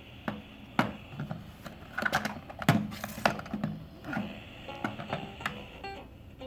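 Small portable radio being tuned between stations: static hiss, clicks and short broken snatches of stations come through its speaker. A music station starts to come in near the end.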